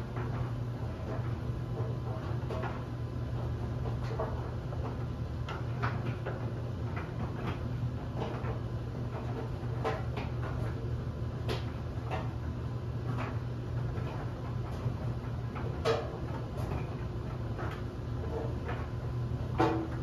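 LG DLE7300WE electric clothes dryer running: a steady low hum of the motor and turning drum, with irregular soft knocks as the tumbling load of bed linens drops inside the drum. One louder knock comes about three-quarters through and another near the end.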